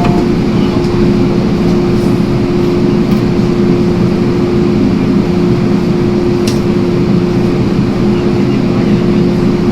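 Inside an MTR Island Line M-Train car: a steady whine holding one pitch over a loud, even rumble.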